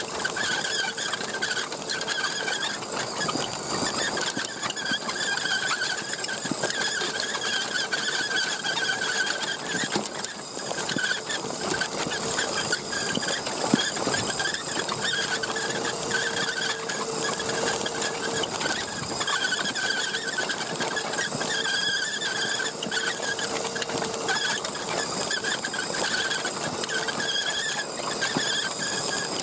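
Axial SCX10 1/10-scale RC truck's electric motor and gear drivetrain whining steadily as it drives over dirt. The pitch wavers with the throttle, and light clicks and rattles run through it.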